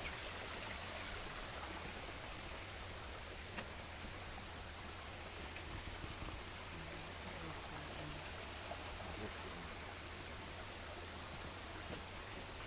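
Steady rainforest background sound: a continuous high-pitched drone over an even hiss.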